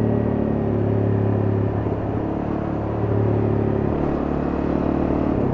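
Honda CRF250M's single-cylinder four-stroke engine running under way as the bike is ridden, the engine note steady and then changing about four seconds in.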